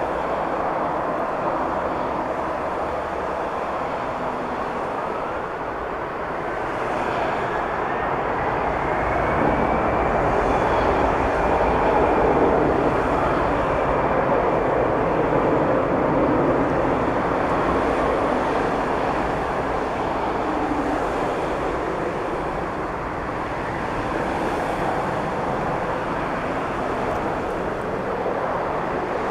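Jet airliner taking off: steady engine noise with a whine that rises in pitch a few seconds in and then holds, the sound swelling to its loudest about halfway through as the engines run at takeoff power.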